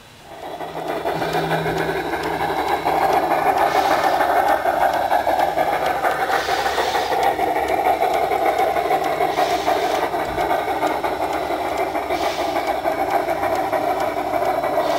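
Phoenix BigSound 2K2 sound card in a Bachmann large-scale Shay model locomotive, playing a fast, even steam-locomotive running clatter through the model's speaker as it runs. The sound builds up over the first few seconds, and a short hiss comes about every three seconds.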